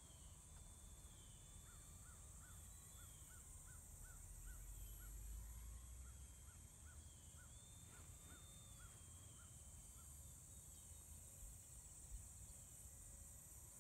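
Faint, distant high whine of a foam-board RC plane's electric motor overhead, gliding up and down in pitch as the plane flies about. A run of short high chirps, about two a second, comes through from about two seconds in for several seconds.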